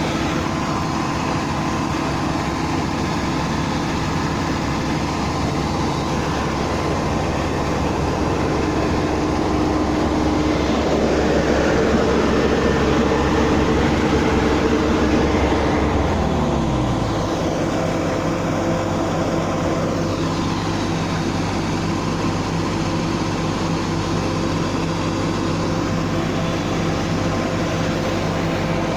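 Rice combine harvester engine running steadily. A bit past halfway its pitch drops as the engine slows to a lower steady speed.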